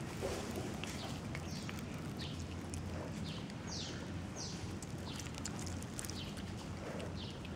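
Birds chirping: short, high, falling chirps repeated about once a second, over a steady low hum.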